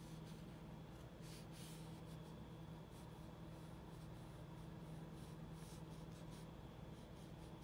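Faint scratchy strokes of a paintbrush worked back and forth over the painting surface. They are heaviest about a second in, over a steady low electrical hum.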